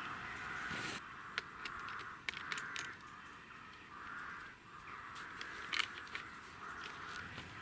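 Crows cawing repeatedly, with several sharp clicks scattered through.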